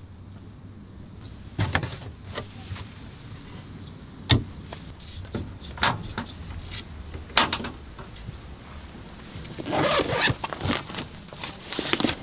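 Scattered sharp knocks and clicks over a steady low hum, with a denser run of clattering near the end: objects being handled and set down.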